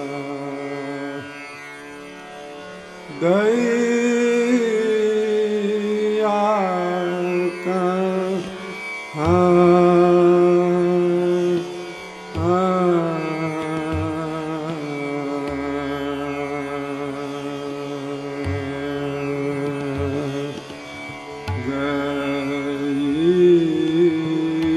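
Hindustani classical singing in raga Alhaiya Bilawal: a solo voice holding long notes and gliding slowly between them in phrases that rise and fall, over a steady drone.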